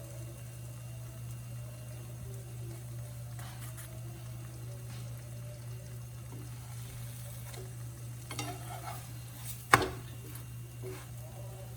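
Pan pie frying in a skillet on low heat: a steady low hum under faint frying. There are a few light clatters, then one sharp clink of a utensil against the pan about ten seconds in.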